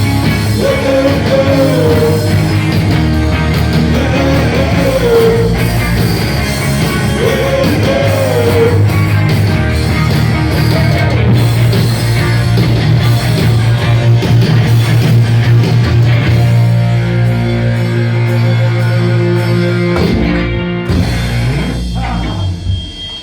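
Rock band playing loud with guitar and a wavering melody line over the first nine seconds, then winding down and stopping just before the end.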